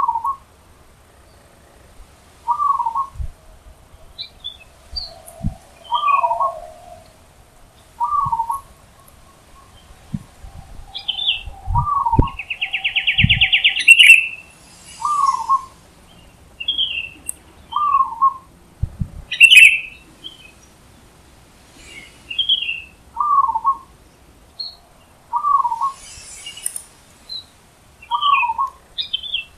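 Zebra dove (perkutut) calling: short cooing notes repeated about every two seconds. Higher chirps of other small birds come between them, with a loud buzzy trill near the middle.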